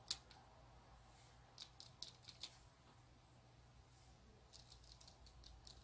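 Near silence with a few faint, light clicks and taps: one at the start, a handful about two seconds in, and a short run of them near the end.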